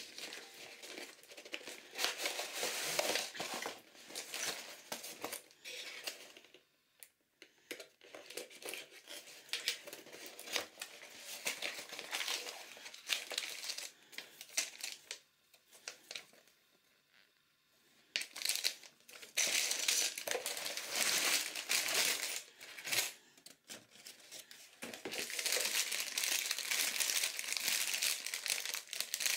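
Clear plastic bags full of small plastic building bricks crinkling and rustling as they are handled, together with cardboard packaging being opened and slid about. It comes in bursts, with a short lull about seven seconds in and a longer one around the middle.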